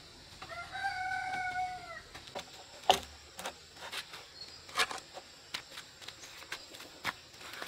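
A single long animal call with a clear pitch, held about a second and a half and sagging at the end, followed by scattered sharp knocks and taps, the loudest about three seconds in.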